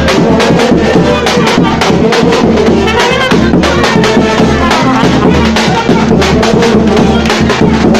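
Serbian brass band (trubački orkestar) playing loud at close range: trumpets and horns over regular strokes of a large bass drum.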